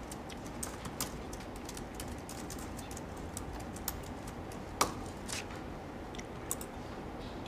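Soft, irregular clicking of typing on a laptop keyboard over a steady low room hum, with one sharper knock about five seconds in.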